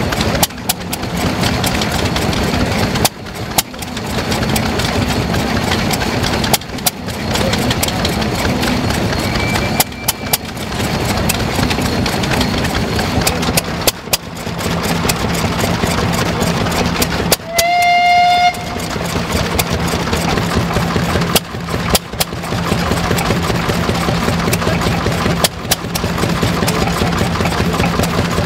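Vintage stationary engines running: a steady low engine drone with many sharp clicks, dropping out briefly every few seconds. About 18 seconds in, a short pitched whistle sounds for about a second.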